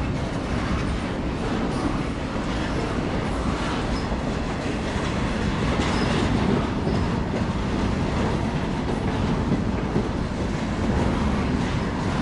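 Freight train cars rolling past: a steady rumble of steel wheels on the rails, with irregular clicks of the wheels running over the track.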